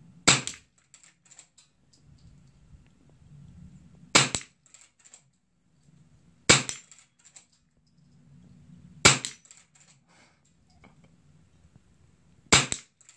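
.22 LR rifle fired five times, one sharp crack every two to four seconds.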